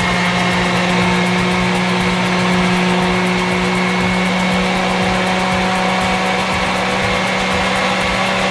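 Moulinex Odacio 3 food processor running at a steady speed, its mini chopper bowl grinding mint, garlic and chillies with water into chutney: an even motor hum and whine.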